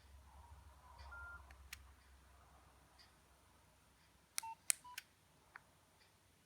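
Nokia 2610 keypad being pressed, each press giving a short electronic key beep. There is a faint beep about a second in, then a quick run of clicks and two short beeps around four and a half seconds in.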